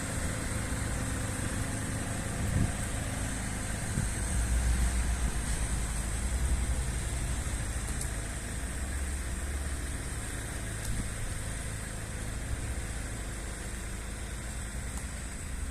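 An engine running with a steady low rumble that grows louder from about four seconds in and eases off after about ten seconds, with a few faint knocks.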